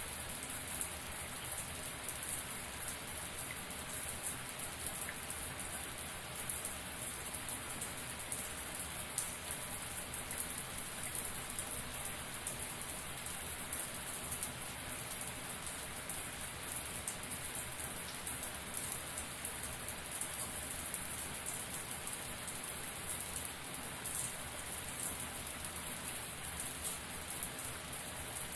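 Shower water running steadily, a dense spray of drops pattering on a hard surface with a bright hiss.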